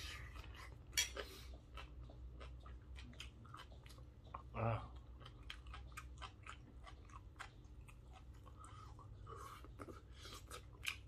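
A man chewing a mouthful of grilled chicken and green papaya salad close to the microphone: many small wet mouth clicks and smacks, one louder smack about a second in. About halfway through comes a short hum of the voice.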